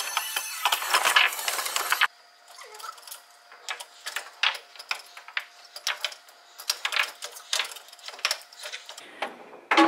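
Foosball game: irregular sharp clacks and knocks as the ball is struck by the plastic players and hits the table. These follow a loud, dense rush of clattering noise that cuts off abruptly about two seconds in.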